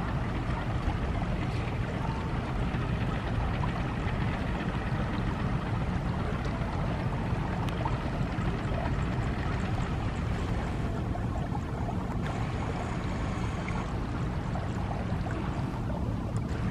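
Diesel locomotive engine running steadily with a deep, even rumble as it slowly pushes its train in reverse.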